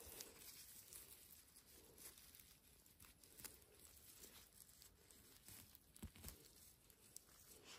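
Near silence with faint, scattered rustling and small snaps, as of movement through forest undergrowth.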